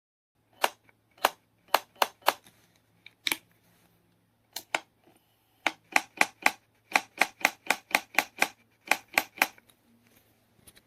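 A series of sharp mechanical clicks at an uneven pace, some in quick runs of two or three a second, over a faint steady electrical hum.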